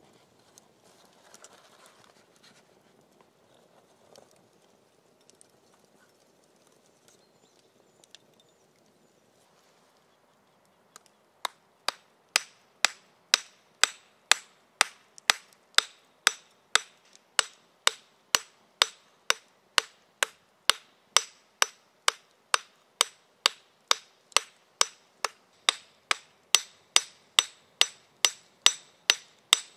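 Hammer striking metal in a steady rhythm of about two blows a second, each blow with a bright metallic ring. The blows start about a third of the way in, after faint handling sounds.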